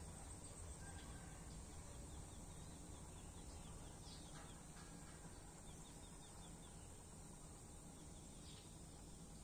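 Near silence: faint open-air ambience with a steady low rumble and a few brief, high chirps of small creatures.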